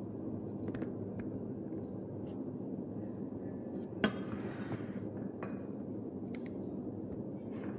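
Steady low kitchen room hum, with one sharp clink of dishware about four seconds in, followed by a short rustle, and a fainter knock a second later.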